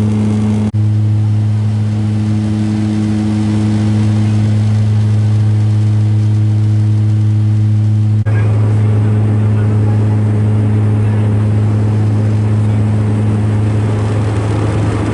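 Cabin drone of a propeller airplane in flight: the engines and propellers make a loud, steady low hum with a stack of overtones above it. The sound breaks off for an instant twice, about a second in and about eight seconds in.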